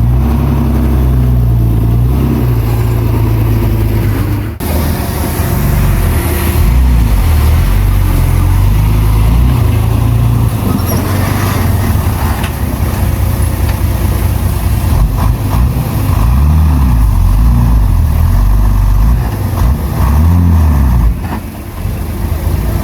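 Heavy earthmoving machinery's diesel engine running loudly, its pitch rising and falling as the load and throttle change.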